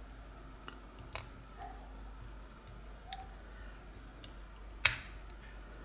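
Pin-tumbler padlock with security pins being picked under heavy tension: a few isolated, sharp metallic clicks from the pick working the pins, the loudest just before five seconds in as the first pin sets.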